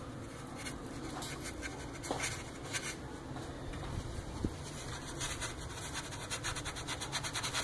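A small brush scratching and dabbing thick grease into the slots of an electric rotisserie barbecue's metal rail, in short strokes that come quicker near the end, over a low steady hum.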